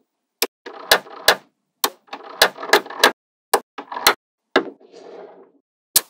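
Small magnetic balls clicking sharply as strips of them snap onto a wall of balls: about a dozen clicks, with a soft rattling clatter of balls between them.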